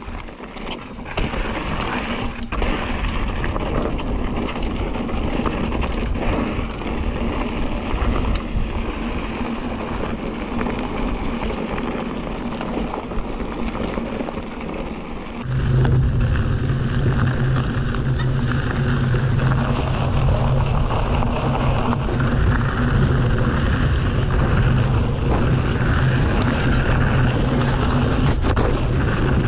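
Hardtail mountain bike riding a dry dirt trail: tyres rolling over the ground with scattered knocks and rattles over bumps, under wind noise on the action camera's microphone. About halfway through the sound gets louder and a steady low hum sets in and holds.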